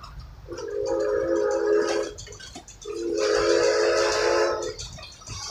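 Narrow-gauge steam locomotive's whistle blowing two long blasts, each a steady chord of several tones. The second blast is a little longer than the first.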